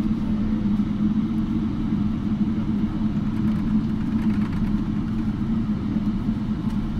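Cabin noise inside a Boeing 777-300 taxiing: the jet engines' steady drone with a constant low hum.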